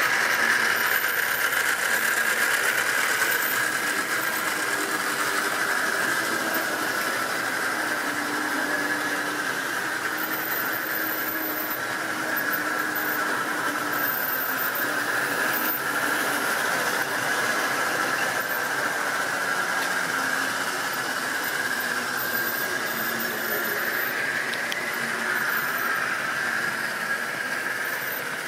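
Tri-ang model trains running on the track: a steady high whine from the locomotive motor and wheels that drifts slightly in pitch, over a light running rumble.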